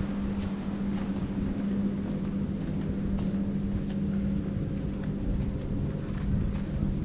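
A steady low motor hum, holding one pitch, over a rumbling wash of outdoor noise, with a few faint ticks now and then.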